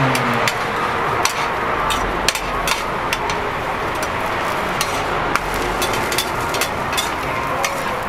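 Stainless steel spatulas clinking and scraping on a flat-top steel griddle, with frequent sharp metallic taps over a steady sizzling hiss from a cabbage-and-egg patty cooking.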